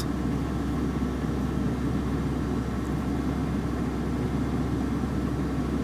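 A steady low mechanical rumble with a deeper constant hum beneath it, unchanging throughout, with no distinct events.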